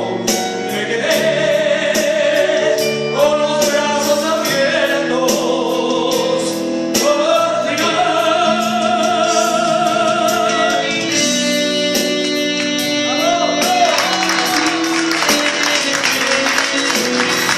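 A man singing a Latin pop ballad into a microphone, accompanied live on a Korg electronic keyboard, with vibrato on his held notes.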